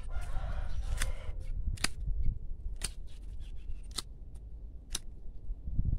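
Hand pruning shears snipping rose branches: a sharp snip about once a second, five in all, with leaves rustling near the start.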